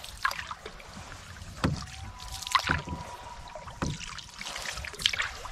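Canoe paddle strokes in the water, a splash and pull about once a second, five strokes in all.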